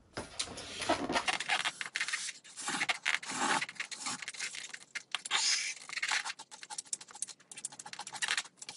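A person slurping and eating instant ramen noodles with chopsticks: several noisy slurps, with small clicks and scrapes in between.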